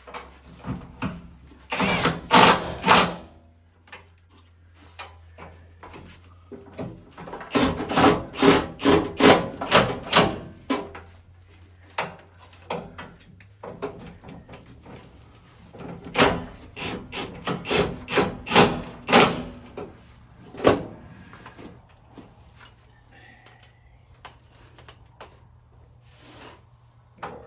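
Hand tools working the bolts of a truck's gas-tank mounting: bursts of sharp metallic clicks and knocks, several in quick succession, in three or four groups with pauses between. A faint steady low hum runs underneath.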